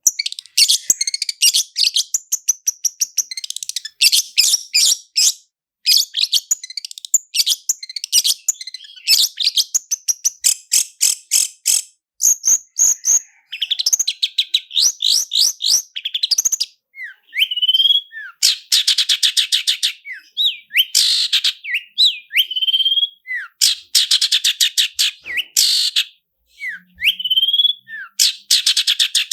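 Long-tailed shrike (cendet) singing fast rolling trills of rapid, rattling notes. Later in the song the trills alternate with short rising whistles.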